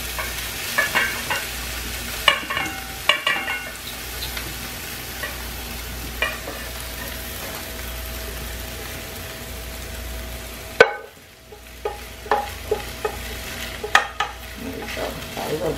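Chicken pieces sizzling in a frying pan while a utensil scrapes and clinks against the pan, lifting the cooked chicken out into a bowl. The sizzle cuts off suddenly about eleven seconds in, and a few sharp clinks follow.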